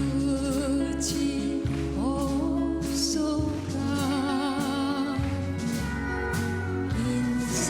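A song playing: a melody with held, wavering notes sung over sustained bass notes and chords.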